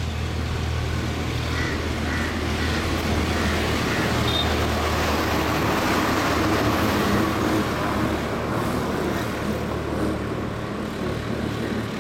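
Road traffic: a motor vehicle's engine running with a steady low hum, the noise swelling to its loudest about six or seven seconds in and then easing off, as of a vehicle passing on the road.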